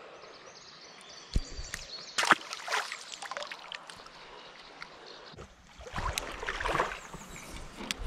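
Shallow creek water trickling and splashing, with a few sharp clicks, the loudest a little over two seconds in, and a louder stretch of splashing about six to seven seconds in.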